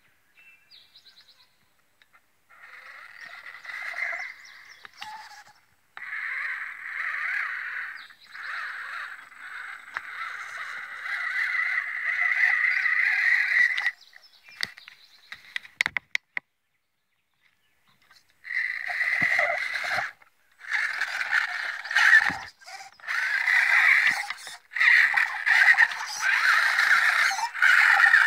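Electric motor and geartrain of an ECX Barrage Gen2 RC crawler whining in throttle bursts as it climbs the windshield glass, stopping and starting repeatedly, with a few sharp clicks and a pause of about two seconds in the middle.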